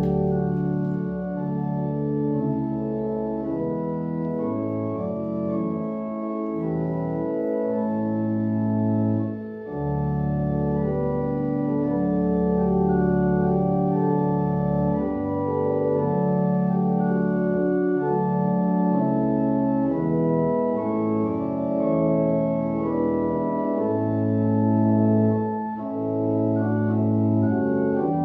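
Organ playing slow, sustained chords over a deep bass line, with two short breaths between phrases.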